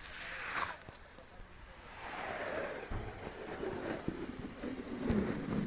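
Sea waves washing in as a soft, even rush that dips about a second in and swells again from about two seconds.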